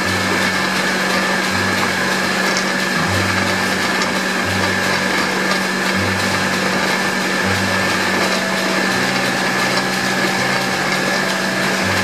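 Motor-driven stirrer of a wood-fired coffee-roasting pan running steadily, churning the roasting beans around the hot pan with a dense rattling hiss. A low throb comes and goes about every second and a half over a steady motor hum.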